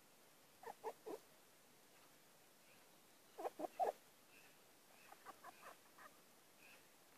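Red foxes, a vixen and her three-week-old kit at the den, giving short calls in quick groups: three about a second in, three louder ones a little past the middle, then a softer run of about five.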